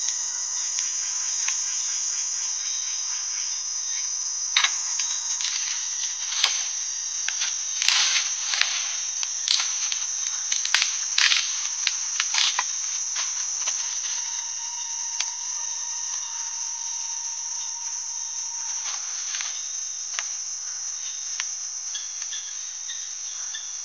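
Steady, high-pitched insect chorus of crickets or similar forest insects shrilling without a break. Between about four and thirteen seconds in, a run of sharp clicks and knocks sounds over it.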